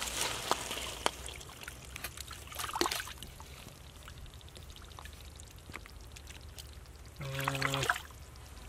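Bare hands squelching and scooping through soft wet mud and shallow water while groping for fish buried in it, with wet sucking and splashing sounds that are busiest in the first three seconds. A short hummed voice comes near the end.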